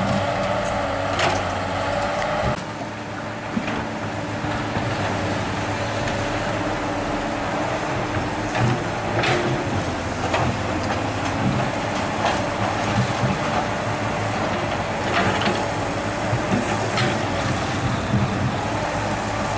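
Diesel dump truck engine running under load for the first couple of seconds, then a Komatsu PC200 hydraulic excavator working: a steady diesel engine with a whine that wavers slightly, and occasional sharp clanks and knocks.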